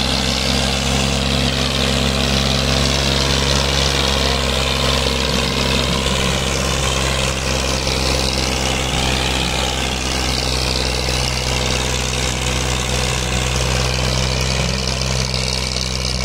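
Massey Ferguson 240's three-cylinder diesel engine running steadily under heavy load as the tractor drags a disc harrow through the soil.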